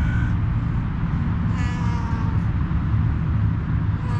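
A white-and-tabby cat meowing twice, a falling meow about a second and a half in and another starting near the end, over a steady low background rumble.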